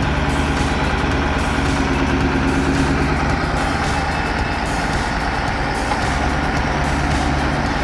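Heavy truck engine running steadily under load, with background music.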